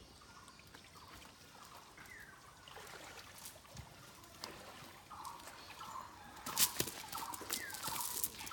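Repeated short, falling bird calls. From about six and a half seconds in, louder crackling and rustling as a cast net holding a fish is set down on dry, leaf-littered ground.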